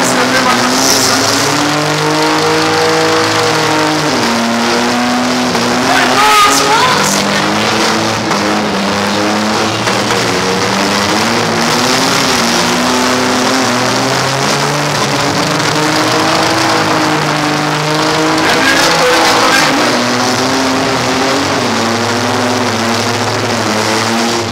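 Several demolition derby cars' engines revving hard together, their pitch rising and falling as the drivers rev and let off. Short higher squeals cut through about six seconds in and again near nineteen seconds.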